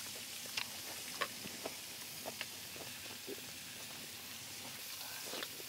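Pork belly sizzling on the grill as a steady hiss, with several light clicks and taps scattered through it.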